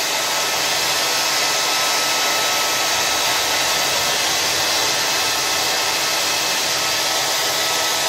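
Conair hand-held hair dryer running steadily, a continuous rush of blown air with a thin steady whine in it.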